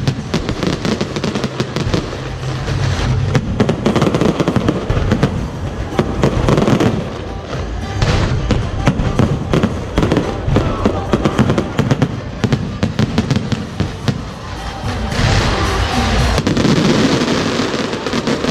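Aerial fireworks going off in rapid succession: a continuous run of sharp bangs and crackles, louder again about fifteen seconds in.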